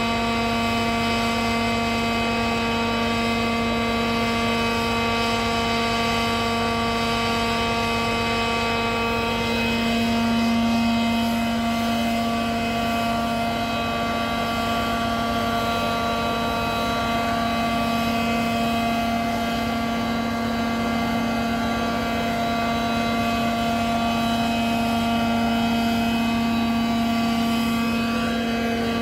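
Steady drone of airport ground support equipment, a ground power unit and air-conditioning unit running at constant speed beside a parked Boeing 737, holding one unchanging pitch and swelling slightly about ten seconds in.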